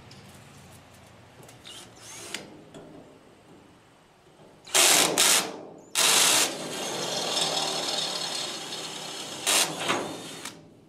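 Power drill boring a hole through the steel tongue of a lawn cart, enlarging a started hole with a bigger bit. After a few quieter seconds it runs in two short bursts, then a longer steady run with another short burst near the end.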